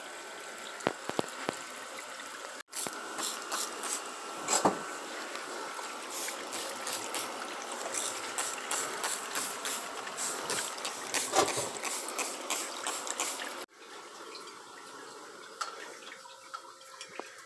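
Water running and splashing, with quick spatters through the middle stretch; the sound changes abruptly twice at edits, about three seconds in and near the end.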